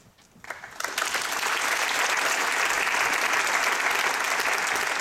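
Audience applauding. A few scattered claps about half a second in swell within a second into full, steady clapping.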